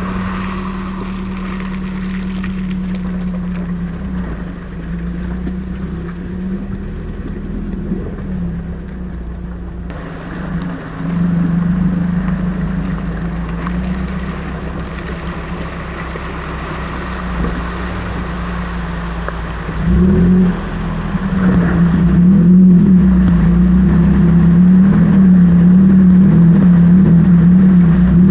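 Four-wheel-drive vehicle's engine working at low speed over rough ground, a steady drone that wavers in pitch. It gets louder about a third of the way in and louder again about two-thirds of the way in.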